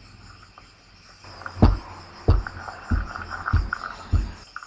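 Five evenly spaced low thumps, about one every 0.6 seconds, starting about a second and a half in, over faint high chirping.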